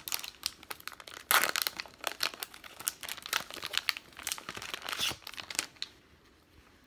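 Topps baseball card pack wrapper being torn open and peeled off a stack of cards, a dense run of crinkling and tearing that stops about six seconds in.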